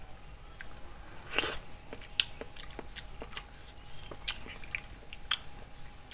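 Biting into and chewing a peeled green mango: irregular wet crunches and sharp clicks, the biggest crunch about one and a half seconds in.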